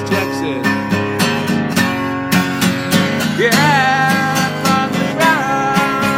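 A man singing to his own strummed steel-string acoustic guitar. About halfway through he slides up into a long wavering note, and near the end he holds another.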